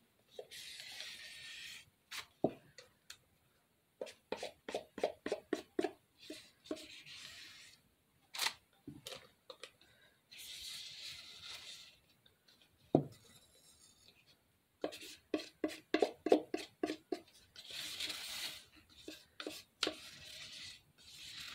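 Spackle being piped and worked onto a foam cake top by hand: a soft scraping rub comes and goes, with two runs of quick light taps.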